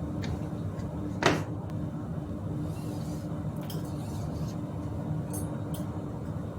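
Tools and bicycle parts handled on a workbench: one sharp metallic clack about a second in, then a few light clicks, over a steady low hum.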